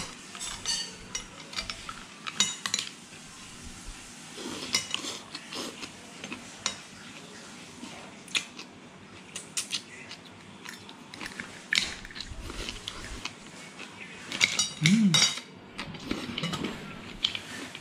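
Metal spoon and fork clinking and scraping on a ceramic plate while eating mussels and vegetables, in irregular short clicks. The densest run of clinks comes near the end, with a brief low voice sound.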